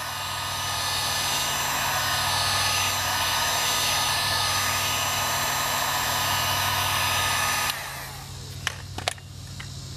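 Electric heat gun running, blowing hot air onto a freshly sprayed headlight sealant coat to clear its humidity fogging: a steady airy hiss with a motor whine. It stops suddenly about three-quarters of the way through, leaving a low hum and a few light clicks.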